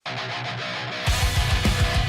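Heavy rock music. A guitar plays alone at first, then about a second in the full band crashes in with fast, driving kick-drum beats.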